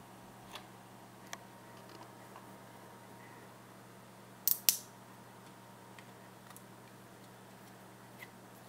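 Small electric fan motor of a fan clock running with a steady low hum, with scattered sharp clicks and a loud double click about halfway through.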